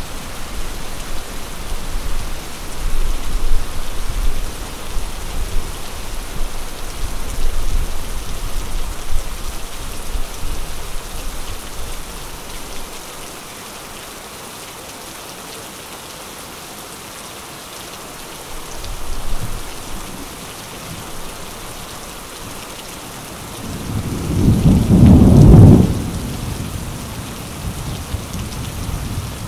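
Thunderstorm: steady rain hiss with rolling thunder. Low rumbling runs through the first part, and a brief rumble comes about two-thirds of the way through. The loudest thunder rolls for about three seconds near the end.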